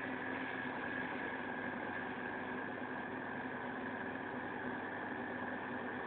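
Aquarium powerhead (circulation pump) running: a steady hum with a thin, high whine over an even hiss.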